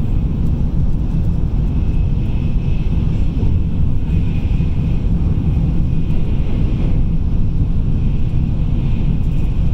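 Tokaido Shinkansen train running: a loud, steady low rumble with a faint hiss higher up, unchanging throughout.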